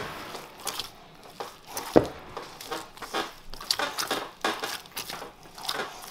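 Hands kneading soft, enriched paska dough with freshly added oil in a bowl: irregular sticky squelches and slaps, a few a second, with one louder knock against the bowl about two seconds in.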